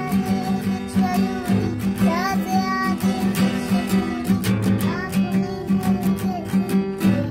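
Acoustic guitar strummed in a steady rhythm, with a young girl singing along over the chords.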